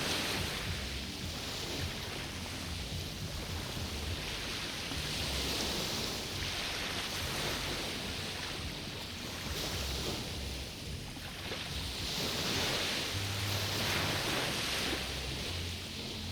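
Small waves breaking and washing up on a beach: a steady hiss that swells and ebbs every two to three seconds, with a low rumble underneath.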